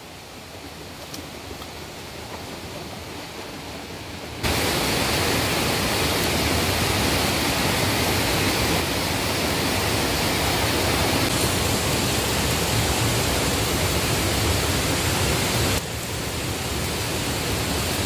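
Steady rush of water flowing over rocks in a stream, quieter at first, then louder from about four seconds in and a little softer again near the end.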